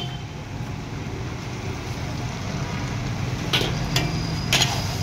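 Metal ladle and spatula clinking against a large wok as vegetable noodles are tossed, three sharp ringing clinks in the second half, over a steady low rumble.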